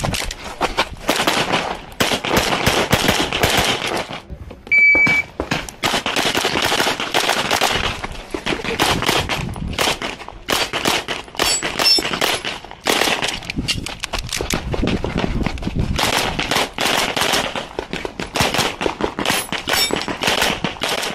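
Rapid 9mm pistol fire from a red-dot Beretta 92X Performance during practical-shooting stages: quick strings of shots with short pauses between them. A short electronic beep about five seconds in, after a brief lull, is the shot timer's start signal.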